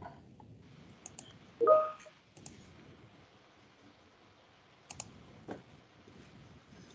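A few scattered computer mouse clicks and light taps while a screen share is being started. About one and a half seconds in there is one short hum that rises and then holds.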